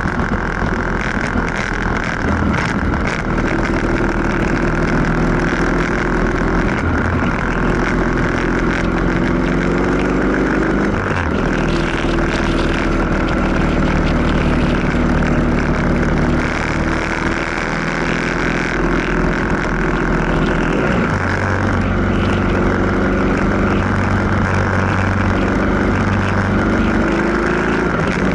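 Motorcycle engine running at road speed, its revs climbing slowly and dropping back several times, with steady road and wind noise underneath.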